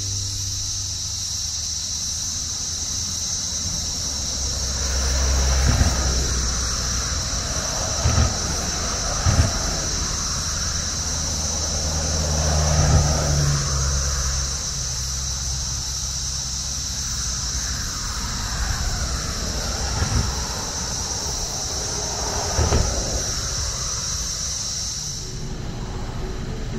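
Road traffic passing now and then, with a low rumble that swells and fades several times, over a steady high-pitched drone that cuts off abruptly near the end.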